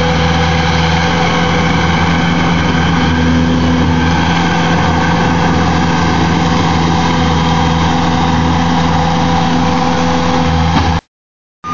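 Bobcat T750 compact track loader's diesel engine running steadily at a constant pitch as the machine pushes through brush. The sound cuts out abruptly near the end.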